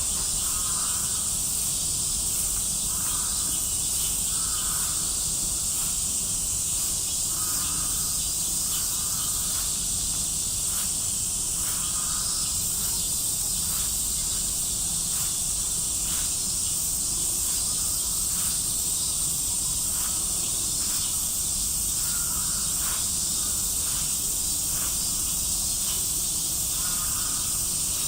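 Steady high-pitched buzzing of a summer cicada chorus, with a lower call recurring every second or two underneath.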